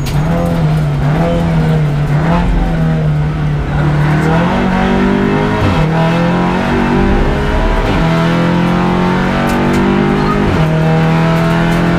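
Audi RS3 LMS touring car's turbocharged 2.0-litre four-cylinder under hard acceleration, heard from inside the cabin on track. The engine note climbs through the revs and dips sharply at three quick gear changes in the second half.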